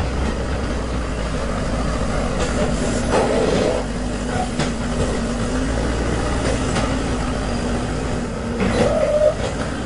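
Manitou TLB 844S backhoe loader's diesel engine running steadily under load while its front bucket works a pile of soil, with a few short clanks. The engine note briefly rises twice, about three seconds in and near the end.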